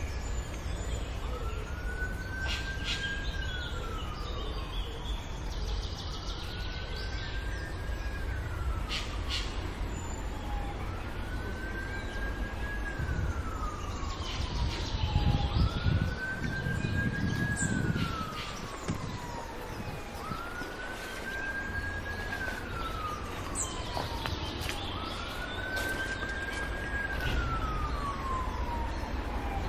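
Emergency-vehicle siren sounding a slow wail. Each cycle rises, holds high, then falls, repeating about every four seconds. Under it are a low rumble that swells about halfway through and a few short bird chirps.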